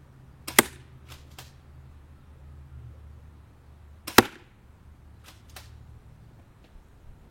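Spring-powered airsoft pump shotgun firing twice, about three and a half seconds apart: each shot is a sharp snap, followed by two fainter clicks as the pump is racked back and forward to cock the spring for the next shot.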